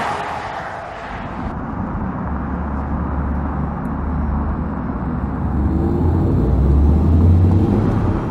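Audi e-tron GT electric car driving by: road and tyre noise with a low hum, then a whine that rises in pitch from about five seconds in as it speeds up, growing loudest as it passes close near the end.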